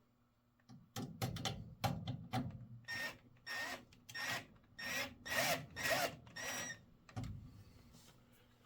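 A screw being driven to fasten a replacement furnace pressure switch: a series of short turning strokes, roughly two a second, each with a faint squeak. A low thump follows near the end.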